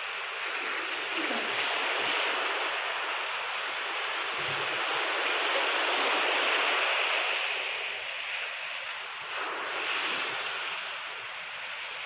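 A steady rushing noise like surf washing on a shore, swelling slowly over several seconds and easing again near the end.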